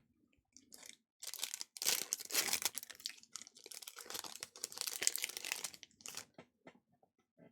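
Foil wrapper of a basketball trading-card pack being torn open and crinkled: a run of crackling, rustling tears from about a second in, stopping shortly before the end.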